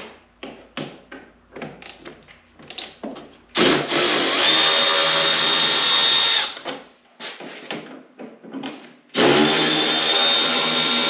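Power drill-driver running in two steady bursts of about three seconds each, with a high whine, after a few light clicks and taps of tool handling.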